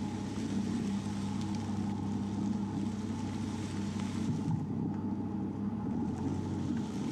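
Jeep Cherokee's engine running steadily under load as it tows a wheeled log arch carrying a roughly 2000 lb black oak log.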